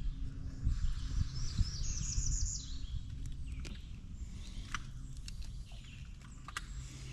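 A bird chirps a quick run of high notes about two seconds in, over a steady low hum and a few sharp clicks.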